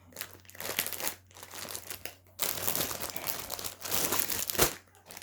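Plastic packaging crinkling and rustling in irregular bursts as a newly unpacked outfit is handled, busiest in the second half, with a brief bump near the end.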